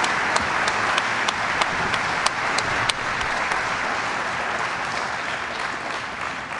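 Audience applauding, with one pair of hands clapping sharply about three times a second through the first half. The applause slowly dies away toward the end.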